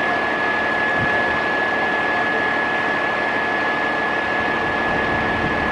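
Fire engine pumper's diesel engine running steadily while parked, with a constant high whine over it.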